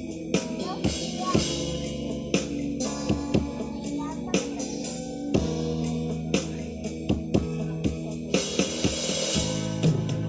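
Instrumental worship music: a steady drum beat under sustained held chords, with cymbal washes about a second in and again near the end.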